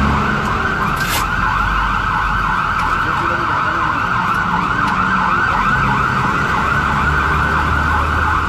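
Ambulance siren sounding a fast, rapidly repeating yelp, over the low rumble of road traffic and engines.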